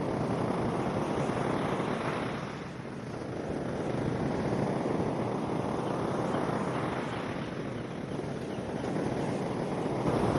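Steady rush of wind on the microphone over surf on the beach, swelling and easing slowly, with a brief lull about two and a half seconds in.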